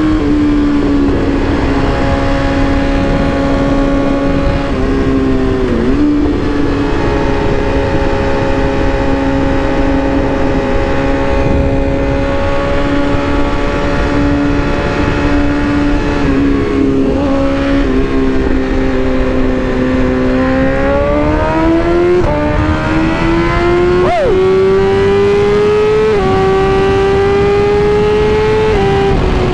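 BMW S1000RR's inline-four engine running at steady cruising revs at highway speed, over rushing wind. About twenty seconds in it climbs steadily in pitch as the bike accelerates, drops slightly near the end like an upshift, and keeps rising.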